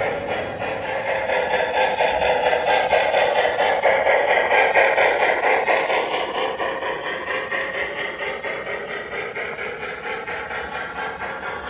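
O-scale MTH CNJ P-47 Pacific model steam locomotive running on its custom sound file, with a steady, even chuff of about three to four beats a second. The sound swells to its loudest about halfway through and then eases off.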